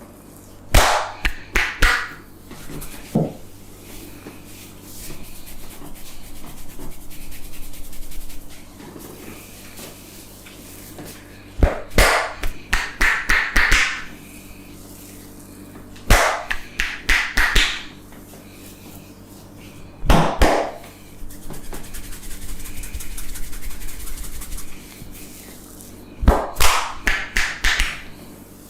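A barber's hands slapping and patting a head during a head massage, in quick runs of several sharp strikes. Five runs come a few seconds apart, with softer rubbing of hands over scalp and hair between them.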